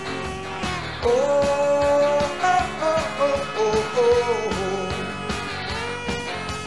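Studio recording of a rockabilly-style rock band playing: electric guitars, bass and drums under a lead melody that slides up into notes and holds them.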